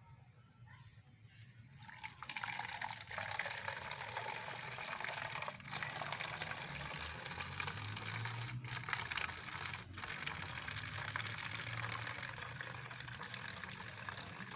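Water poured from a steel mug into a plastic PET bottle, filling it with a steady splashing stream. The stream starts about two seconds in and breaks off very briefly three times.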